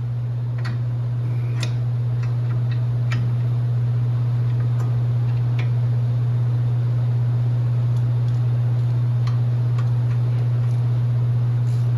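A steady low hum with light clicks and taps scattered irregularly over it.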